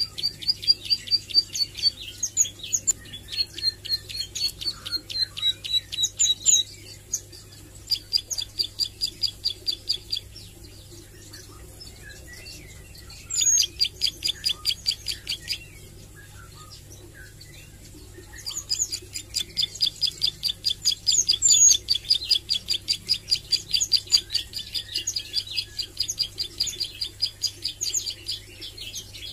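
Plain prinia (ciblek sawah) singing in bouts of fast, evenly repeated high notes, with short pauses of scattered softer calls between them; the longest run fills the second half. It is a young bird still learning its song and its rapid trill.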